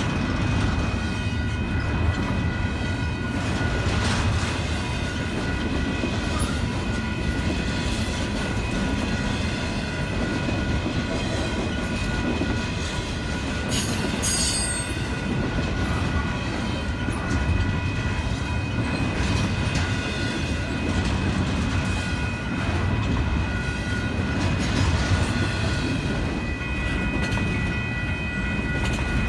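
Long double-stack container freight train rolling past: a steady rumble of steel wheels on rail with the clickety-clack of the cars, over a steady high ringing. A brief sharp high-pitched noise comes about fourteen seconds in.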